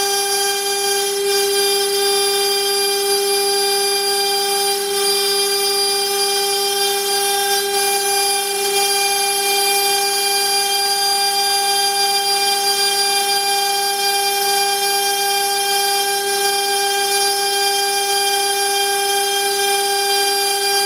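High-speed electric spindle of a CNC wood router milling aluminium sheet: a loud, steady whine at one pitch with overtones and a hiss of cutting.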